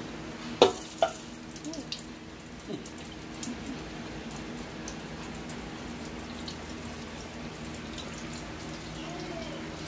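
Chicken deep-frying in a pot of oil: a steady sizzle and bubbling with scattered small crackles over a low hum. Two sharp knocks about half a second apart near the start, the first the loudest sound here.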